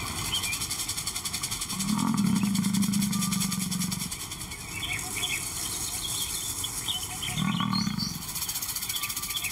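Male African lion giving two low roaring calls, a long one about two seconds in and a shorter one near the end.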